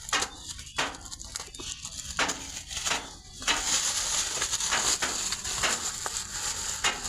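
Irregular rustling and crackling handling noises, with a steadier high hiss from about three and a half seconds in.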